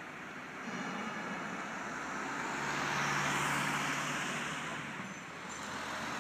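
A motor vehicle driving past, its engine and tyre noise rising to a peak about three seconds in and then fading.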